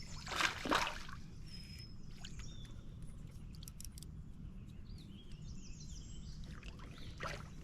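Water splashing right beside a kayak twice, about half a second in and again near the end, as a hooked bass is brought in, with faint clicks between. Birds chirp faintly over a steady low rumble of wind.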